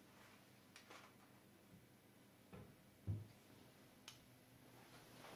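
Near silence with a few faint clicks from handling a boxed medicine blister at a cupboard, and one soft low thump about three seconds in.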